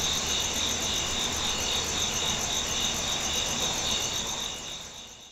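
Night insects, crickets among them, chirping steadily in several high pitches at once, one of them in a regular pulsing rhythm; the sound fades out near the end.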